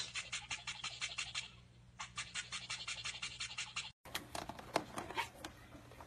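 A toothbrush scrubbing a cockatiel's beak in quick, even strokes, with a short pause about a second and a half in. After a cut, a caique parrot pecks at a plastic game controller, making irregular taps and clicks.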